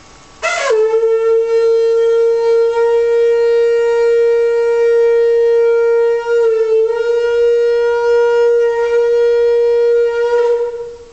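Trumpet holding one long, steady note for about ten seconds, starting with a breathy, blaring attack and wavering briefly about six seconds in.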